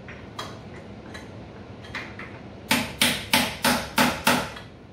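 Small hand hammer tapping a tight-fitting top gear down onto the mini mill's spindle, where the keyway binds on both sides: a few light taps, then six hard, sharp strikes about three a second.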